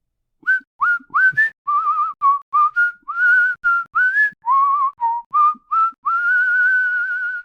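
A person whistling a quick run of short notes, many sliding up into pitch, then one long wavering held note near the end.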